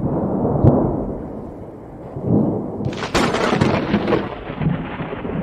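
Thunder from an overhead thunderstorm: a rolling rumble with one sharp crack about a second in. A loud hiss joins about halfway through and fades toward the end.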